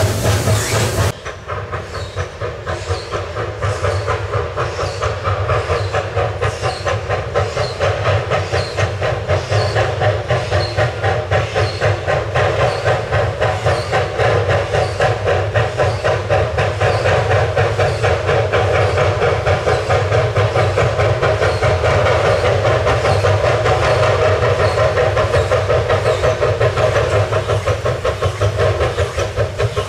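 Two-foot gauge Hudswell Clarke steam locomotive working hard on a steep grade: a steady, even rhythm of exhaust beats with steam hiss.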